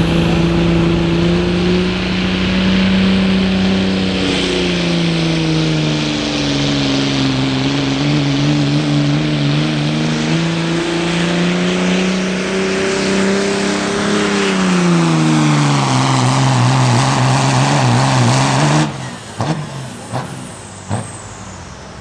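Second-generation Dodge Ram 2500's Cummins turbo-diesel pulling a sled at full throttle, a high turbo whistle climbing over the first few seconds as the engine note sags, recovers, then falls steadily in pitch as the sled loads it down. About nineteen seconds in the throttle is let off and the engine drops away, followed by a few sharp high chirps and clicks.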